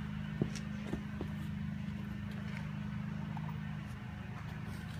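A steady low machine hum, with a few light clicks in the first second or so.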